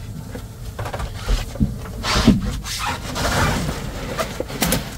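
A large tuna being shoved and worked into a boat's ice-filled fish box: irregular scraping and rubbing of the fish against the ice and the box walls, heaviest in the middle.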